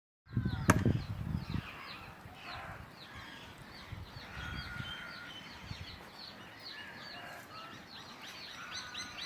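Many small birds chirping and calling all at once, several calls a second. There are some low knocks in the first second or so, and a sharp click.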